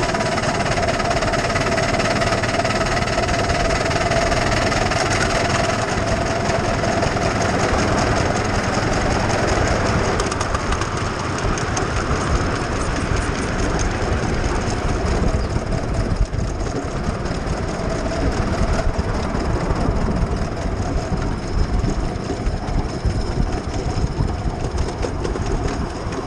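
A 7¼-inch gauge miniature steam locomotive running along the track, heard close up from the engine: steady running noise of the loco and its wheels on the rails. A steady whine carries through the first ten seconds or so, then fades, leaving finer regular ticking.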